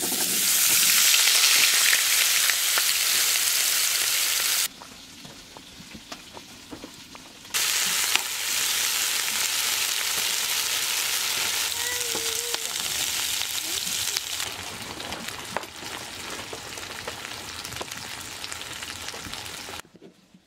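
Diced potatoes frying in a hot pan: a loud sizzle as they are tipped in, which dips for about three seconds, returns, and eases off slowly before cutting out near the end.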